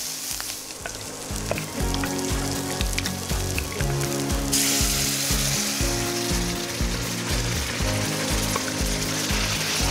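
Onion-tomato masala sizzling in a hot kadai while a wooden spatula stirs it. About four and a half seconds in, a much louder hiss of sizzling starts suddenly as pressure-cooked chicken and its liquid are poured into the pan. Background music with a steady beat plays throughout.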